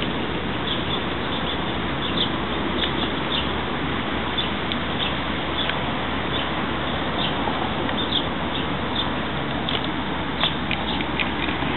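Steady rushing outdoor background noise, with many short, high chirps or squeaks scattered through it.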